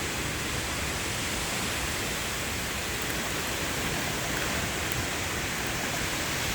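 Heavy, wind-driven rain pouring down steadily, an even rushing hiss.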